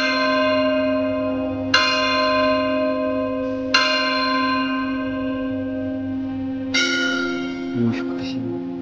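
Church tower bell ringing, struck about every two seconds and sustaining a long ring between strikes. About seven seconds in comes a strike at a different pitch.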